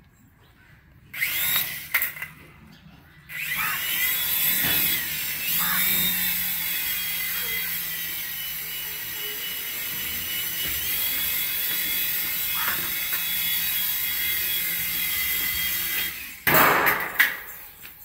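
Small electric motors of a toy RC helicopter whining as the rotors spin. There is a brief spin-up about a second in, then steady running from about three seconds in while it flies, the pitch rising and dipping with the throttle. A short louder noise comes near the end.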